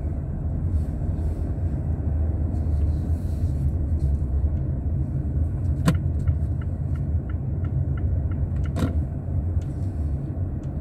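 Steady low rumble of a car's engine and tyres heard from inside the cabin while driving slowly. About six seconds in there is a sharp click, then a short run of faint quick regular ticks, and a second click near the end.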